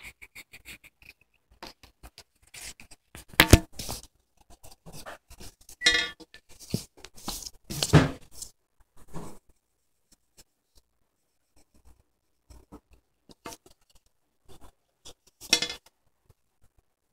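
Irregular knocks, clatters and scraping, loudest about three and a half and eight seconds in, with a last sharp knock near the end.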